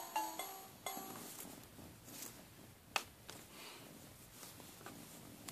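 A talking plush toy's electronic tune plays its last few notes in the first second. Then comes faint handling noise, with a sharp click about three seconds in.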